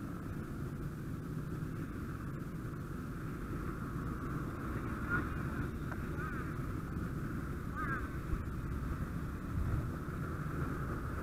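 Fire engine's diesel and pump running steadily: a low rumble with a steady higher hum above it. A couple of brief squeaky chirps come in about halfway through.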